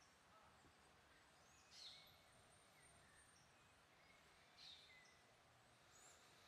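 Near silence: faint outdoor background with a few faint bird chirps, about two seconds in and again near five seconds.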